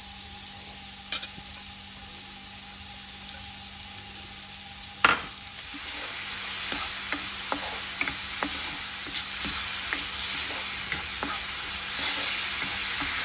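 Diced peaches frying in butter and sugar in a nonstick pan, sizzling, while a spatula stirs and scrapes them with many small ticks. A sharp knock comes about five seconds in, after which the sizzle gets louder.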